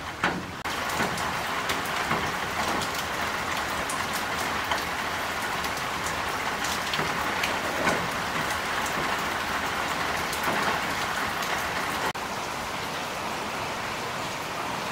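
Steady rain falling, with many sharp ticks of drops landing close by. About twelve seconds in it changes to a slightly quieter, smoother hiss of rain.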